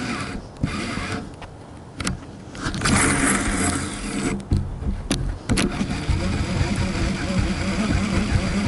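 Trulinoya TS1200 baitcasting reel being cast and worked, over a low rumble. A loud rush of noise comes about three seconds in, and sharp clicks come about two seconds in and again around five seconds.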